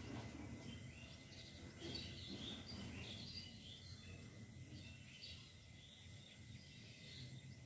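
Near silence: faint room tone with scattered faint bird chirps in the background.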